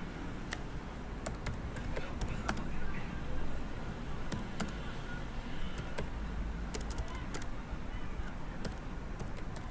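Computer keyboard keys being typed slowly: sparse, irregular single clicks over a steady low background hum.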